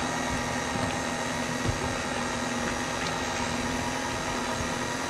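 Electric tilt-head stand mixer running steadily at low speed, its motor giving an even hum as the beater mixes a thick coconut cream filling in the steel bowl.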